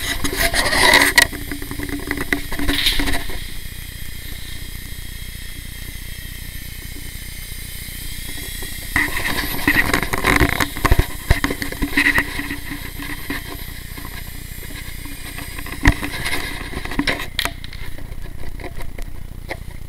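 Blade mCX Tandem Rescue micro RC helicopter flying: its small electric motors and twin rotors whine steadily, growing louder and noisier in stretches as the throttle changes. There is a sharp knock about three-quarters of the way through, and the highest part of the whine drops away near the end.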